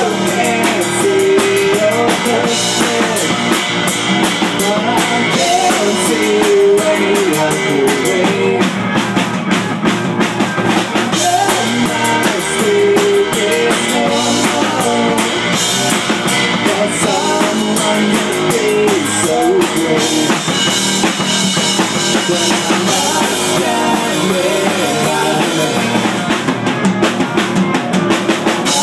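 A small rock band playing live: drum kit, electric guitar and electronic keyboard together in a continuous song.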